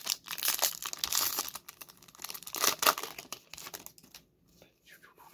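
Foil Pokémon booster pack wrappers and trading cards crinkling and rustling as they are handled, in irregular bursts for about three seconds, then dying down.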